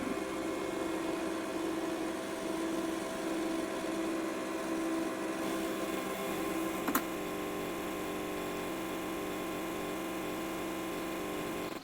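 Breville Infuser espresso machine running with a steady buzzing hum, its pump working. There is a single sharp click about seven seconds in.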